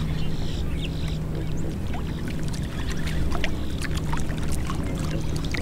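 Steady low hum of a fishing boat's motor, with water lapping and small clicks and knocks against the hull, and a few short bird calls.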